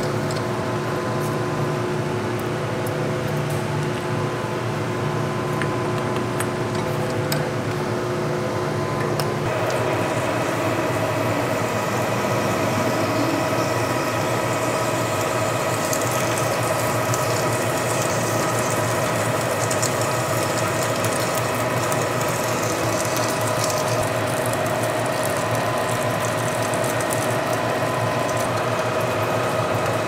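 Metal lathe running under power with flood coolant, cutting a bore through a round coupling blank: a steady gear whine from the headstock with coolant splashing off the spinning chuck. The tones shift about nine seconds in, and a hissing cutting and spray noise joins from about sixteen seconds.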